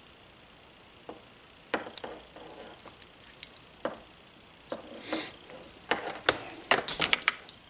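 Scattered clicks, knocks and short scraping rustles of small parts and tools being handled on a workbench, starting about a second in and growing busier toward the end.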